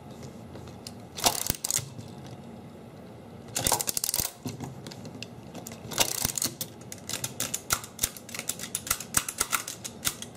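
R.C. Allen Model 75 mechanical adding machine's exposed mechanism clattering as its operating handle is pulled. Its levers, latches and ratchets make short bursts of sharp clicks, then a longer run of rapid clicking from about six and a half seconds on.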